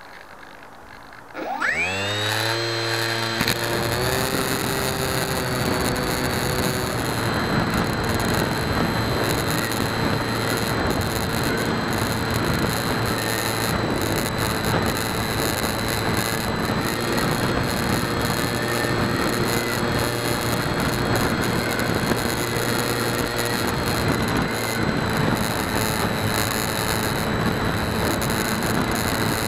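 HK Bixler 2 RC plane's stock electric motor and 7x6 propeller spooling up about a second and a half in, its whine rising in pitch, then running steadily in flight. Heard from the onboard camera, with air rushing past the airframe under the motor whine.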